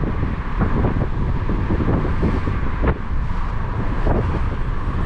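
Car cabin noise as the car moves slowly to park: a steady low rumble of engine and tyres, with a few faint knocks and one sharper click about three seconds in.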